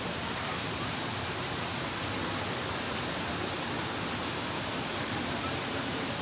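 Waterfall rushing: a steady, even roar of falling water with no change throughout.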